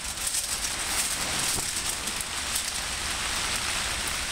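Rain pattering steadily on a tarp-covered shelter, a dense even patter of small ticks, with a low steady hum underneath.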